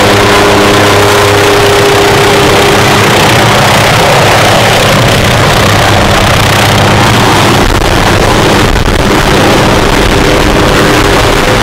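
Hughes 500-type light turbine helicopter flying low and slowing to hover: loud, steady turbine and rotor noise with a few held tones over it. A deeper rumble grows about two-thirds of the way through as it comes in close.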